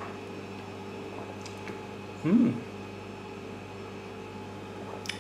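Steady low hum of a quiet room, holding a few constant tones. About two seconds in comes a brief voice-like sound, perhaps half a second long.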